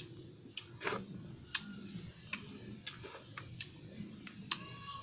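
Chewing on adobo chicken feet: faint, irregular mouth clicks and smacks, roughly two a second.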